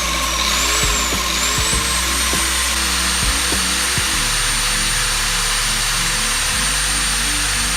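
Electric motor running with a steady rushing noise and a high whine that rises in pitch over the first two seconds, then holds steady as it reaches speed.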